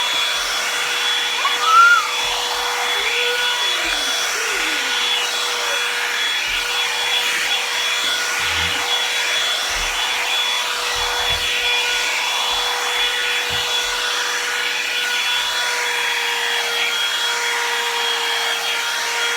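Marble one-step hair dryer brush running steadily on hot air: a constant motor whine over the rush of air from the brush head.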